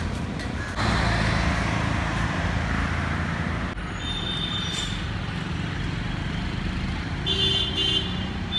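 Road traffic going by, a vehicle passing a second or so in, with short high-pitched horn toots near the middle and again near the end.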